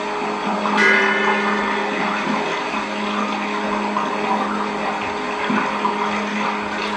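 Droning electronic sound score: a steady wash of noise with held tones layered over it, a higher tone coming in about a second in.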